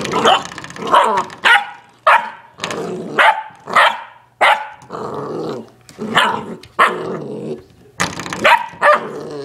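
Sheepadoodle puppy barking over and over, one or two barks a second, with growling in between as it attacks a spring doorstop.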